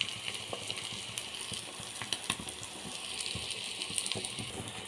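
Egg and chopped capsicum frying in oil in a pan over a low flame: a steady sizzle with scattered small pops and crackles.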